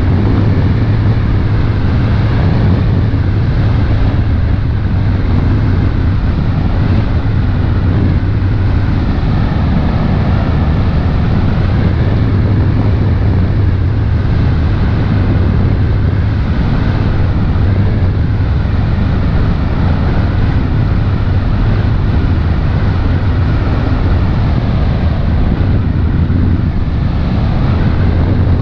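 Motor launch under way at cruising speed: its engine drones steadily with a low hum, mixed with wind on the microphone and water rushing past the hull.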